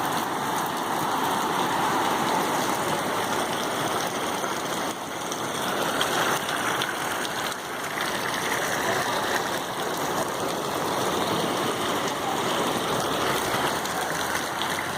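Heavy rain pouring down: a steady, dense hiss of a downpour.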